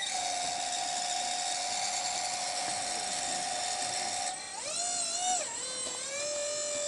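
Electric drive motor of a remote-controlled helicopter ground-handling dolly, whining steadily as the dolly drives in under the skids. About four seconds in, the pitch wavers and dips as the speed changes, then settles into a steady, slightly lower whine.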